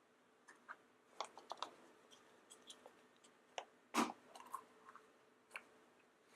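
Scattered small clicks and crinkles of a plastic confetti-filled surprise egg being handled and opened, with one louder click about four seconds in.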